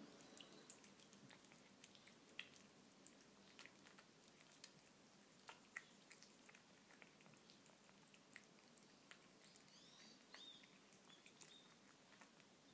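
Faint, irregular soft clicks and smacks of a kitten chewing and licking flaked wet cat food from a plate. A few short bird chirps come in about ten seconds in.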